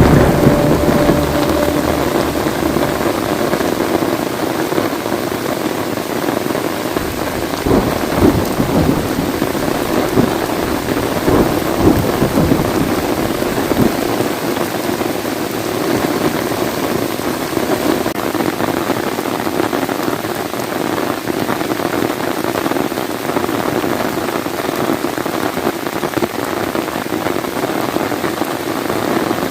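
Steady heavy rain falling, with rumbles of thunder near the start and again a few seconds later.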